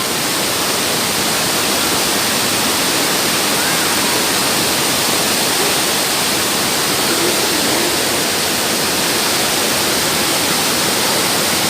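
Waterfall rushing: a loud, steady, even wash of falling water.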